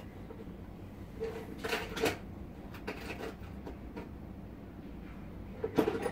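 Scattered knocks and clatter of objects being handled and moved, in three short clusters: about a second and a half in, around three seconds in, and loudest just before the end.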